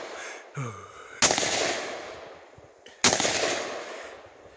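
Two gunshots about two seconds apart, each followed by a long echo fading away. They are shots at an explosive target that has not yet gone off.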